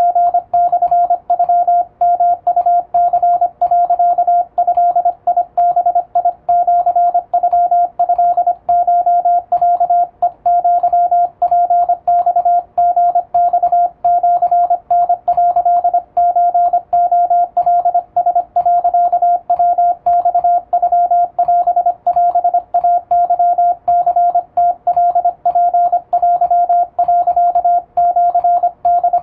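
Morse code sent with an electronic keyer: a single-pitch beep keyed in fast, continuous dots and dashes, spelling out Japanese wabun Morse plain text.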